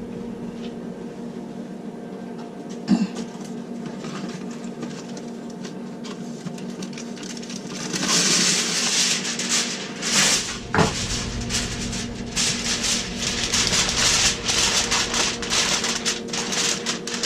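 Aluminium foil crinkling and rustling as it is pressed down over a casserole dish, starting about eight seconds in. Before that, a steady low hum and a single knock about three seconds in.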